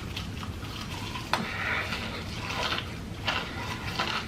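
Close-miked chewing of French fries: crackly mouth and smacking sounds with a few sharp clicks, about a second in, past three seconds and near the end.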